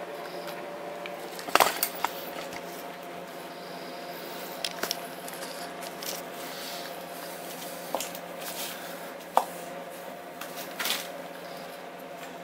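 Small metal clicks and taps of a brake pad retaining spring being fitted into a scooter's front brake caliper: a handful of irregular sharp clicks, the loudest cluster about a second and a half in, over a steady low hum.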